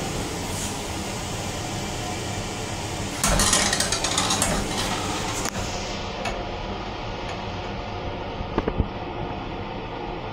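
Steady mechanical hum and rushing noise inside a Long Island Rail Road M9 railcar's restroom. A louder hiss rises for about two seconds a few seconds in, and a few light clicks come near the end.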